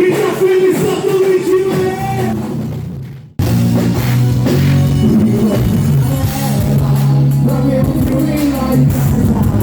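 Live band music with a singer. It fades out about three seconds in and cuts abruptly to another song with heavy bass.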